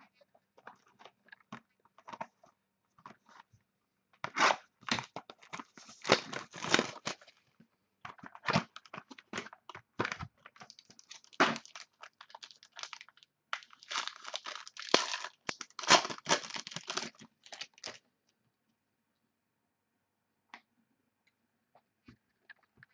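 Plastic wrapping on a sports trading card box being torn open and crinkled by hand, in irregular crackling bursts.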